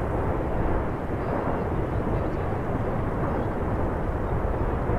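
Lava fountain jetting from Fagradalsfjall's crater number five, making a steady rushing noise like a jet.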